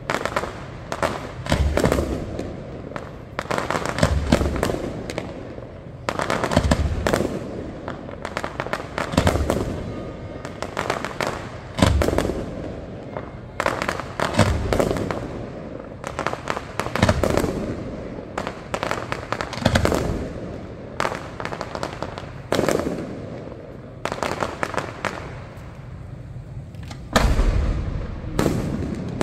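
Aerial firework shells bursting in a display, a heavy boom about every two to three seconds with many smaller pops and crackles between them.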